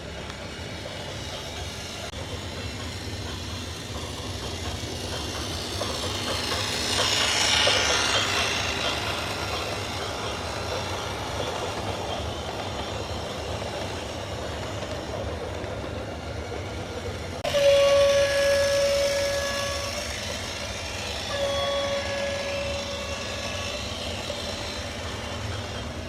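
A steady rumble that swells a few seconds in, then two long horn blasts on one pitch, the first starting suddenly and the second following a second or so after it ends.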